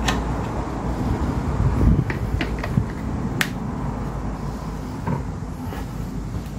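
A few light clicks and knocks of a fuel bottle and the small fuel tank of a model diesel engine being handled, with a steady low rumble behind them.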